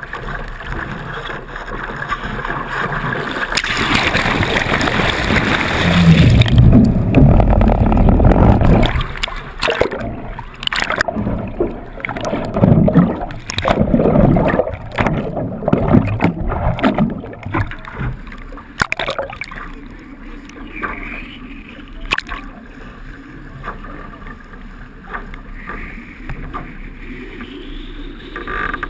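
Water rushing along the hulls of a Hobie 16 catamaran under sail, with wind buffeting the microphone in heavy gusts from about six seconds in until about seventeen seconds, then easing.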